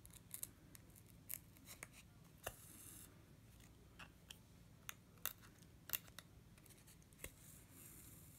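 Faint hand-beading sounds: a needle pushed through stiff beading backing and thread drawn through, heard as scattered sharp clicks and one short scratchy rasp about two and a half seconds in, over quiet room tone.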